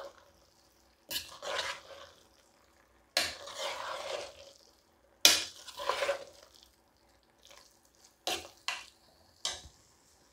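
A spatula stirring and scraping a thick vegetable and coconut mixture against the inside of a pressure cooker pot, in several long strokes, followed by three short knocks near the end.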